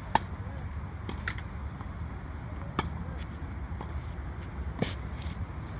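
Tennis ball struck back and forth by rackets in a baseline rally: sharp hits about every two seconds, with softer ball bounces between them, over a steady low rumble.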